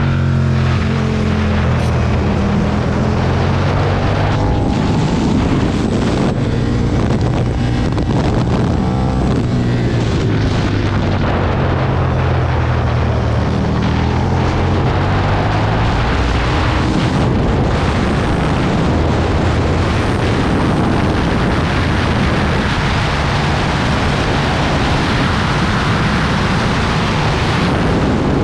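Aprilia Tuono's V-twin motorcycle engine at speed, the revs rising and falling again and again as it accelerates and slows, with heavy wind noise on the microphone.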